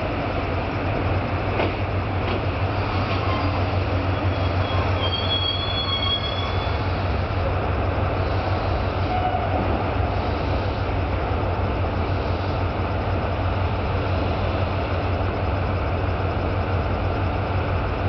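JR Kyushu KiHa 220 diesel railcar pulling in and stopping, with a short high brake squeal about five seconds in. Its diesel engine then idles with a steady low hum while it stands at the platform.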